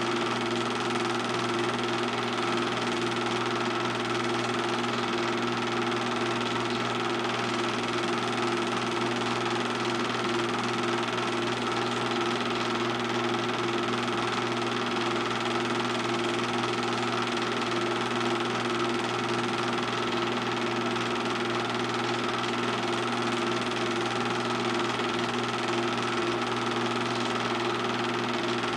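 Steady mechanical hum and whir of a running film projector, even in level and pitch throughout.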